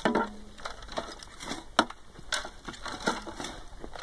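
A hand tool digging and scraping through loose soil in a steel wheelbarrow, with scrapes and a handful of sharp, irregular knocks.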